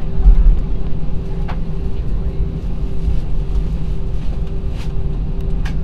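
Cabin noise of an Airbus A319 taxiing: a steady low rumble from the jet engines at taxi power and the wheels rolling on the taxiway, with a steady hum over it. A few faint clicks sound about a second and a half in and near the end.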